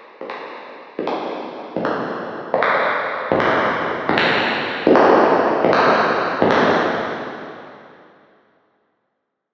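Footsteps at a steady walking pace, about one step every three-quarters of a second, each with a long echoing tail. They grow louder toward the middle, and the last step dies away to silence about eight and a half seconds in.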